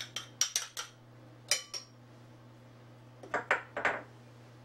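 A metal utensil clinking and tapping against a small glass mixing bowl as crushed garlic is scraped into tomato paste. There is a quick run of clinks at first, a single ringing clink about a second and a half in, and a few more taps near the end.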